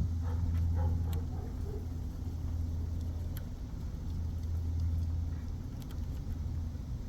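Lock-picking tools working inside a pin-tumbler door lock, giving a few faint metallic clicks, over a steady low rumble.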